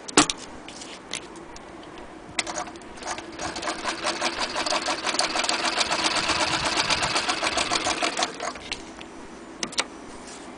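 Vintage Frister & Rossmann sewing machine stitching through fabric: a rapid, even clatter that starts a couple of seconds in, grows louder, and stops after about six seconds. A sharp click, the loudest sound, comes right at the start, and two clicks come near the end.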